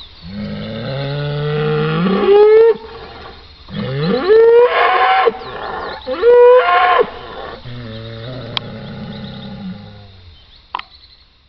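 Cattle bellowing: three long, loud calls that start low and rise steeply in pitch at the end, followed by a lower, drawn-out moo that fades away near the end.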